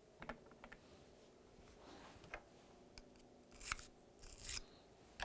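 Faint handling of a .308 Winchester brass case in the fingers: a few light clicks, then two short scraping rubs about three and a half and four and a half seconds in.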